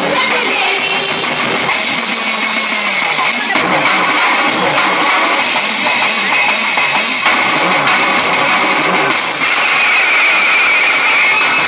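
Loud dance music playing, with the steady hiss of a ground fountain firework spraying sparks.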